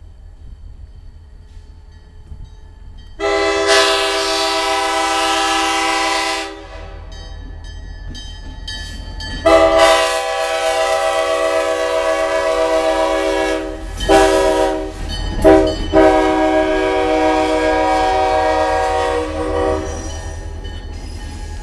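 Leslie K5L five-chime air horn sounding its chord, first in a blast of about three seconds, then, after a pause, in a longer blast of about ten seconds that is broken twice briefly partway through.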